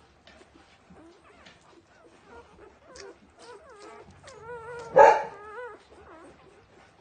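Two-day-old golden retriever puppies nursing: high, wavering squeaks and whimpers over a patter of small suckling clicks, with one louder cry about five seconds in.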